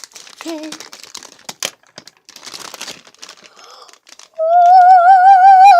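Plastic packaging crinkling and tearing in scattered rustles as a squishy's bag is cut open with scissors. About four seconds in, a child sings one loud, long, wavering high note over it.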